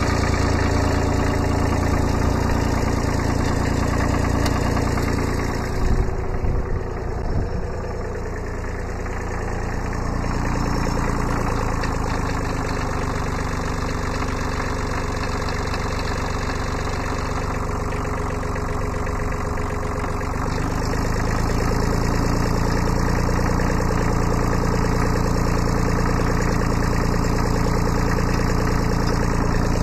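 Kubota B7100 compact tractor's small three-cylinder diesel idling steadily, with a few metallic knocks about six to seven seconds in. Its note shifts lower and slightly quieter from about ten seconds in, then returns to the earlier idle after about twenty seconds.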